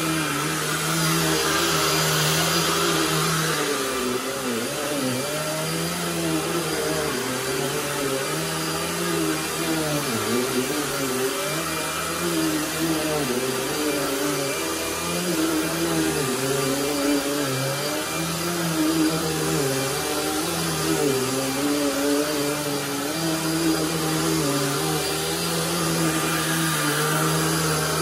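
Dirt Devil Vision Wide Glide upright bagless vacuum cleaner running on carpet, pushed back and forth. Its motor hum is steady but dips and rises in pitch every couple of seconds as the load changes with each stroke.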